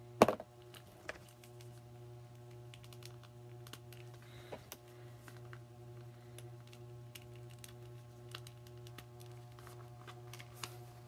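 Small plastic clicks and taps from a Dungeons & Dragons Venger action figure's removable hands being fitted back onto their wrist pegs and the figure handled. One louder click comes just after the start, then scattered lighter ones, over a steady low hum.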